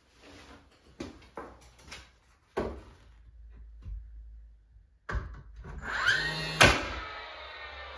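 Wooden shims being tapped in behind an interior door jamb: a few sharp knocks about half a second to a second apart, a pause, then more knocks, the loudest near the end. Background music comes in during the second half.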